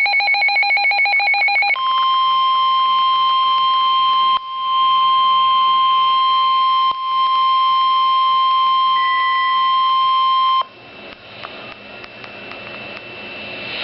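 NOAA Weather Radio alert: a second or so of rapid pulsing beeps, then the single steady 1050 Hz warning alarm tone held for about nine seconds, briefly dropping out twice. It cuts off suddenly into radio static with crackles.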